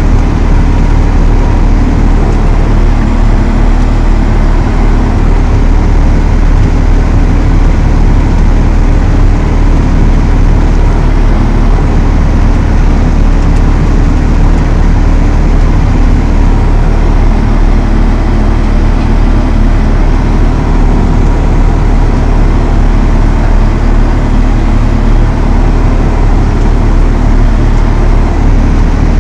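Valtra T214 tractor's six-cylinder diesel engine running steadily at constant revs, a loud low drone.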